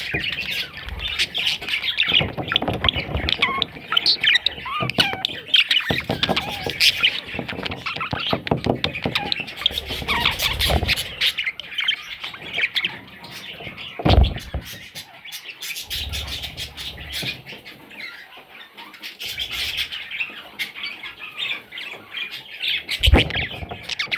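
Budgerigars chattering and squawking in a dense run of quick, high chirps that thins out for a few seconds in the middle. A couple of dull thumps sound in it, the loudest about fourteen seconds in.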